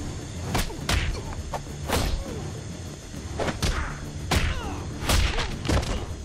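Cartoon fight sound effects: a quick, uneven series of punches and body blows, about nine sharp hits with swishes among them, over a low rumble.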